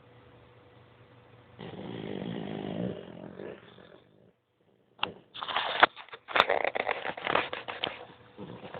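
A pet snoring loudly: a long breathy snore starting about a second and a half in, then after a short pause a louder, rattling snore with a rapid flutter, starting about five seconds in and lasting some three seconds.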